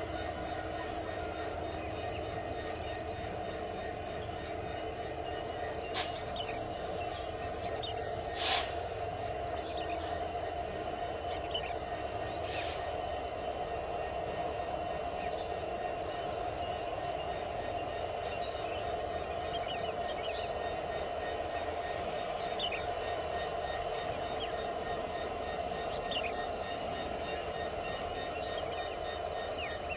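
Insects chirping in a fast, even pulse over a steady low drone from two CC 205 diesel locomotives coming slowly round the curve with empty coal wagons. A sharp click comes about six seconds in, and a louder short crack about two seconds after it.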